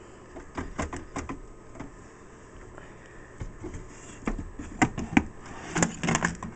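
Handling noise of an RBC7 battery pack, two 12 V lead-acid batteries, being slid out of an APC Smart-UPS battery compartment: scattered clicks and scrapes, then a cluster of louder knocks about five seconds in as the pack comes clear.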